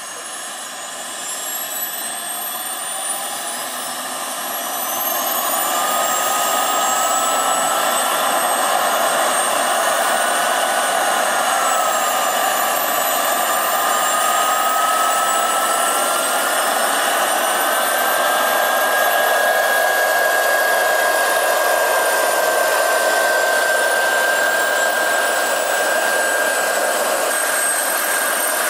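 Gas turbine of a 1/5-scale Kamov Ka-32 model helicopter spooling up: whines rise in pitch over the first several seconds, then settle into a steady high turbine whine over the rush of the turning coaxial rotors.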